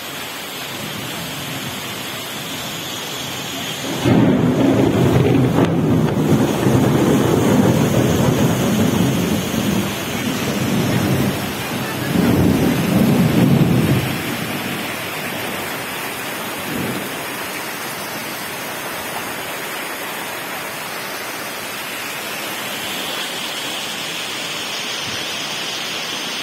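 Steady rushing of heavy rain and muddy floodwater pouring down a flooded lane. A long rolling rumble of thunder comes in about four seconds in and lasts about ten seconds. It dips briefly and swells once more before fading.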